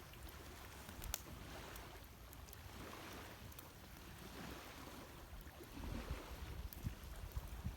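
Campfire burning with occasional sharp crackles and pops, a clear pop about a second in and several more near the end, over a low steady rumble.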